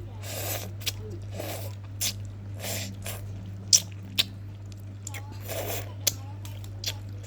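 Close-up eating of mie goreng instant noodles in broth: chewing and several half-second slurps about a second apart, with sharp clicks scattered between them. A steady low hum runs underneath.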